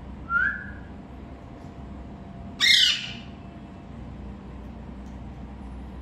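A parakeet calls twice: a short call about a third of a second in, then a louder, harsh squawk just before three seconds in.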